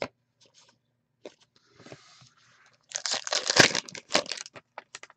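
A foil trading-card pack wrapper being torn open and crinkled, loudest for about a second and a half starting about three seconds in. Light clicks of cards being handled come before it.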